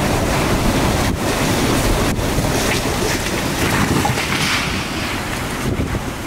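Category 4 hurricane eyewall winds blowing hard and steadily, with heavy wind buffeting on the microphone. The level eases a little near the end.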